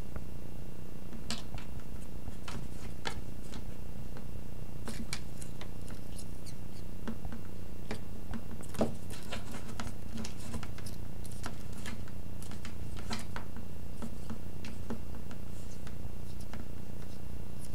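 Scattered light clicks and taps as a feather wand toy is jiggled against a rattan sofa frame and tile floor during cat play, with one sharper tap about halfway through. A steady low hum runs underneath.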